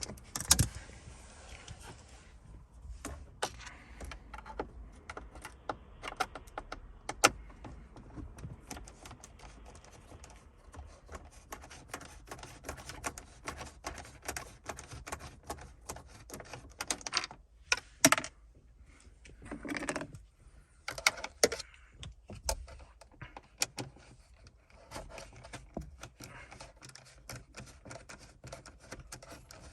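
Hand screwdriver with a T20 Torx bit undoing small screws from plastic car trim: many irregular light clicks and taps, with a few louder clusters of knocks in the second half.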